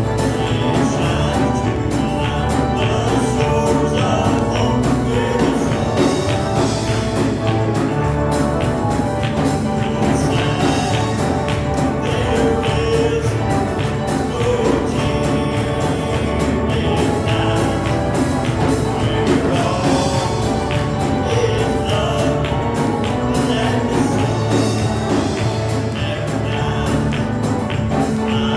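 Church choir singing a gospel song with live accompaniment, a drum kit keeping a steady beat.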